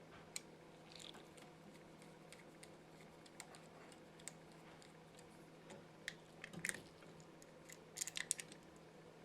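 Faint scattered clicks and taps of a screwdriver working the terminal screws of a light switch to free its wires, with a small cluster about six and a half seconds in and a louder cluster around eight seconds. A low steady hum runs underneath.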